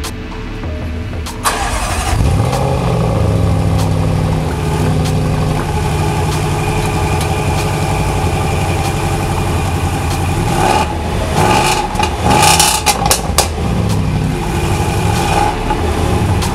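Range Rover Sport SVR's supercharged 5.0-litre V8 cold-starting about a second and a half in, then settling into a steady fast idle. A few seconds before the end it is blipped several times, with loud crackles and pops from the exhaust, then drops back to idle.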